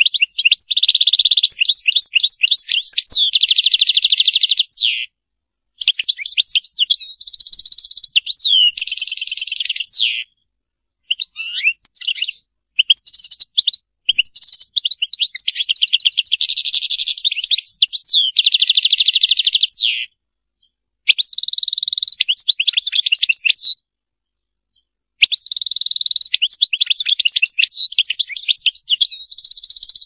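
European goldfinch singing: long phrases of fast trills, twitters and buzzy rattling notes, with several short pauses between phrases.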